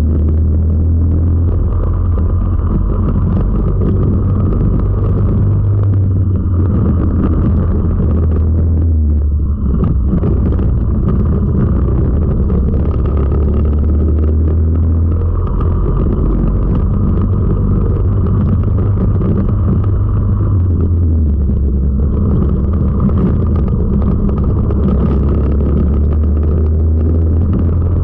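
Four-stroke kart engine running hard under race load, heard from on board. Its note drops and climbs several times with the throttle through the corners, with a brief dip about nine seconds in.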